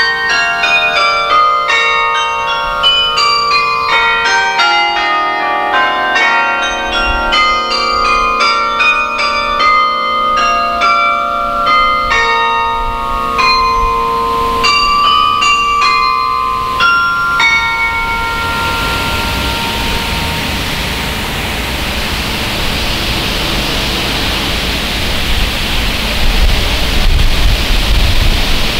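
Carillon bells played from a baton keyboard: a quick run of struck notes and chords, each ringing on. The playing ends about two-thirds of the way through as the last chord dies away, and a steady rushing noise follows, louder and with a low rumble near the end.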